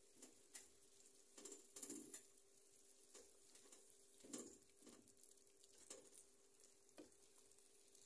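Metal spatula scraping and knocking against a frying pan as food is stirred: faint, irregular scrapes, loudest about two seconds in and again halfway through. A faint steady hum runs underneath.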